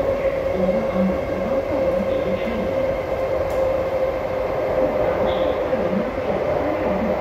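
SMRT C151B metro train running, heard from inside the passenger car: a steady rumble with a single steady tone held over it.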